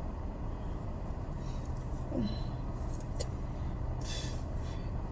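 Steady low hum like a running vehicle engine, with a brief rustle about four seconds in.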